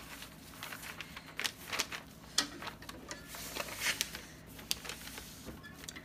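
A sheet of paper rustling and crinkling as it is handled and laid flat, in irregular short strokes.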